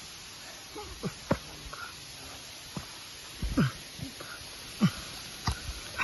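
A person breathing hard from exertion, with several short breathy grunts that each drop in pitch, over a steady hiss and a few sharp clicks.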